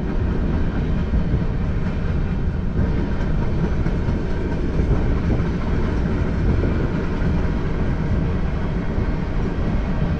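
Freight cars (tank cars and covered hoppers) rolling past at a grade crossing: a steady rumble and clatter of steel wheels on the rails.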